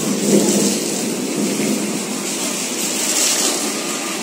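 Heavy rain falling, mixed with motorbike traffic passing on the wet road, the loudest pass coming just after the start.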